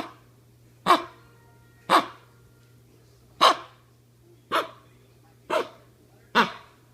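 Coton de Tulear dog with kennel cough giving a run of short, harsh honking coughs, about seven, roughly one a second.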